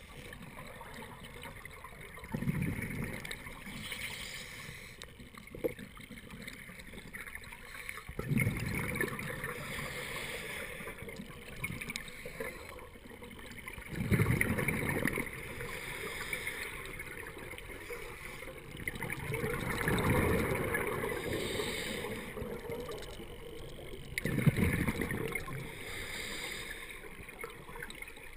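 Scuba regulator breathing heard underwater: exhaled bubbles rush and gurgle in bursts about every six seconds, five times, over a steady underwater hiss.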